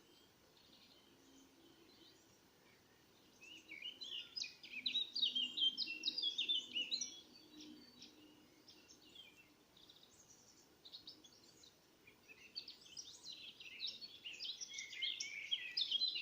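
A songbird singing: two long runs of rapid, high chirping notes, the first starting about three seconds in and the second about twelve seconds in, with a few scattered notes between them.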